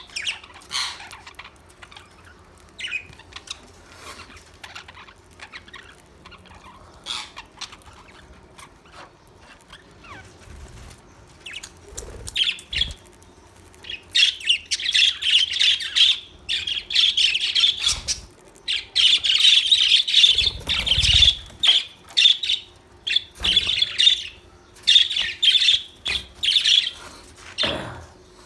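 Budgerigars chirping and chattering: scattered short calls at first, turning into continuous chatter about halfway through, with a few dull thumps.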